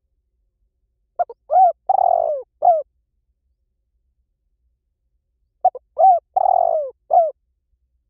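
Spotted dove cooing: two phrases about four and a half seconds apart. Each is a quick couple of short coos, then a longer coo that falls in pitch, then one last short coo.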